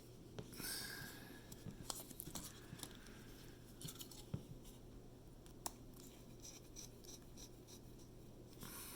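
Faint scattered clicks, taps and brief scrapes of a small screwdriver and plastic parts being handled while a Google Home Mini is put back together.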